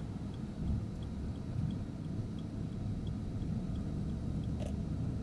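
Steady low engine and road rumble inside a moving vehicle's cabin, with a faint regular ticking and a single short click about four and a half seconds in.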